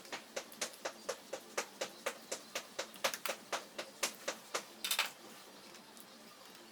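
Sharp, evenly spaced clicks, about four a second, from a hand tool working on a Toshiba Qosmio G40 laptop during disassembly, ending in a brief rattle.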